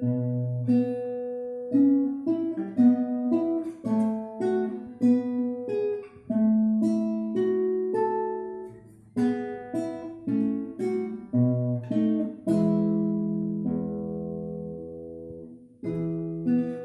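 Classical nylon-string guitar played solo fingerstyle: a plucked melody over bass notes. Near the end a chord is left to ring out and fade for a few seconds before the playing picks up again.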